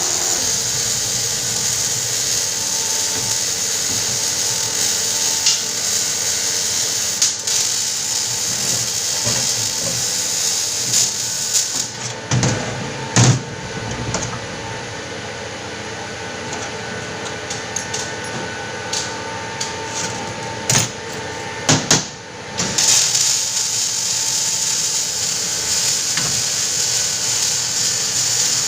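A power tool running with a steady hiss. Its high-pitched part cuts out for about ten seconds midway, and a few sharp knocks come near the middle and again just before it starts up.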